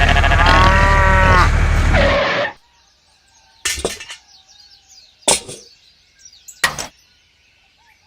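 A loud droning sound with wavering pitched tones stops abruptly about two seconds in. Then four sharp knocks come about a second and a half apart, with faint bird chirps between them.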